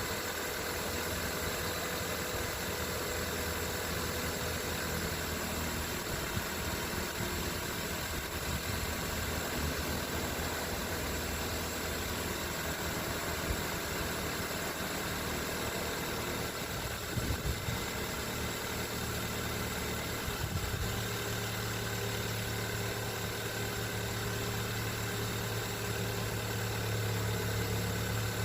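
A car engine running steadily, with a low hum that grows stronger about two-thirds of the way through.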